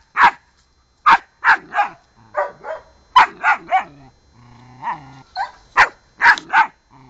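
Puppy barking at a cat in quick runs of two or three high, sharp barks, with a brief low growl about two-thirds of the way through.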